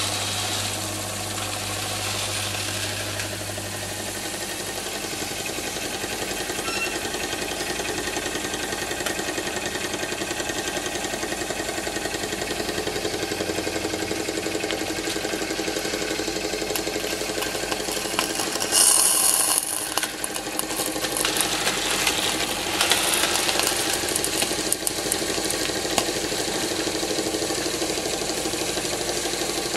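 Wilesco D45 toy steam engine running steadily, with a fast, even chuffing and rattle. About two-thirds of the way through there is a brief, loud burst of high steam hiss, then lighter hissing for a few seconds.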